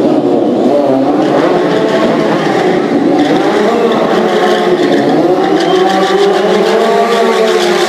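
Stunt motorcycle engines revving, their pitch rising and falling continually as the bikes wheelie and circle.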